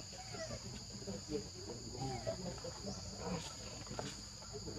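Steady high-pitched insect chorus of crickets or cicadas, holding two unbroken tones.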